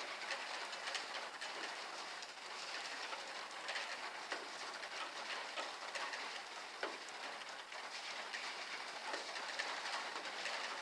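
Heavy rain falling steadily, with scattered sharp drip and splash ticks on hard surfaces.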